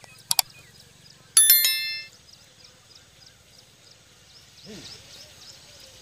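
Subscribe-button animation sound effect: two quick mouse clicks, then a bright bell ding that rings out for about half a second.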